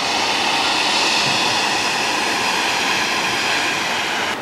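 Steady, loud jet aircraft noise on an airport apron: an even rushing roar with a faint high whine running through it.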